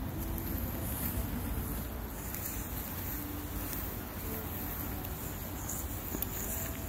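Steady outdoor background noise: a low, fluctuating rumble with a faint high hiss, with no distinct events standing out.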